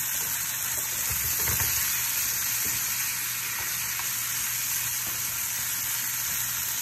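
Saltfish, onions, tomatoes and bacon sizzling steadily in hot oil in a non-stick pan while being stirred with a spatula, with a few knocks of the spatula about a second in.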